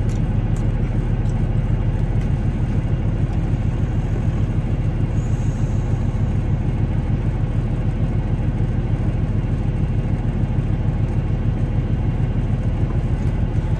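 Semi-truck diesel engine idling, a steady low rumble heard from inside the cab.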